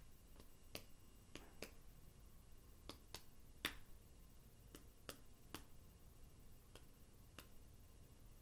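Near silence, broken by about a dozen faint, irregular clicks, one a little louder a little past the middle.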